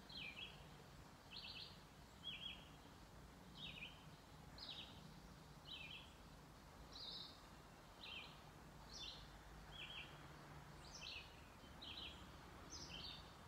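A bird chirping over and over: faint, short high calls, about one a second, over a low steady outdoor background hiss.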